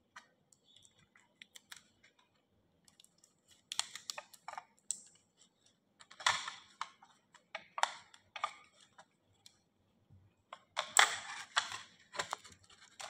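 Fingers handling a thin aluminum soda-can sheet and tape, crinkling and rustling in scattered short bursts with small clicks.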